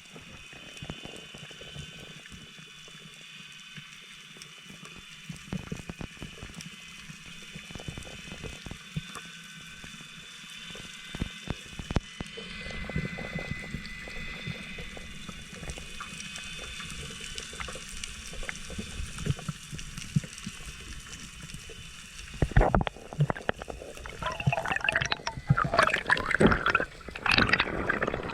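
Water sounds recorded by a camera during a spearfishing dive: a steady hiss with scattered clicks and crackles, then louder splashing and gurgling in the last few seconds.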